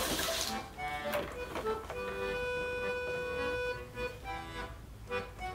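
Background accordion music with sustained chords and a long held note in the middle.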